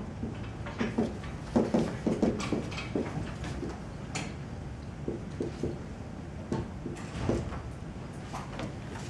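Dry-erase marker writing on a whiteboard: a run of short, irregular taps and scratchy strokes, busiest between about one and a half and three seconds in.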